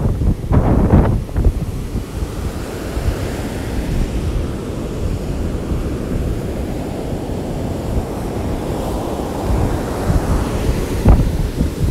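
Heavy hurricane-driven surf washing up the beach in a steady rush, with strong wind blowing on the microphone in gusts, loudest about a second in and again near the end.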